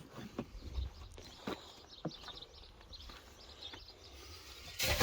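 Young Berkshire pigs grunting softly now and then while waiting to be fed, with a short louder rustle near the end.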